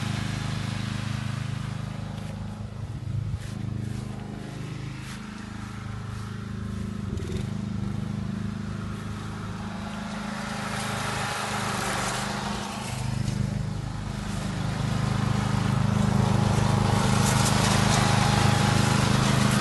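Lawn mower engine running steadily, quieter in the first half and growing louder in the second.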